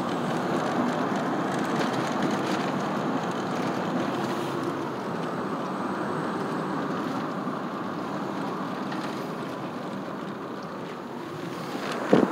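Steady road and engine noise of a moving car, heard from inside the cabin, with a few sharp knocks right at the end.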